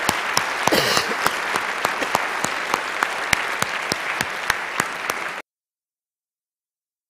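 Audience applauding, many hands clapping at once, cutting off abruptly about five seconds in.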